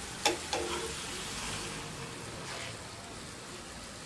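Hot oil sizzling steadily as a handmade corn tortilla fries in a pan. Two sharp metallic clacks of the tongs against the pan come early, the second with a short ring.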